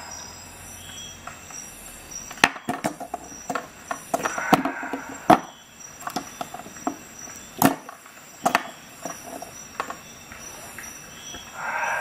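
Swiss Army knives clicking and knocking against a glass tabletop as they are set down and pushed into place. The sharp taps come in two clusters, one from about two and a half to five and a half seconds in and another from about eight to ten seconds in.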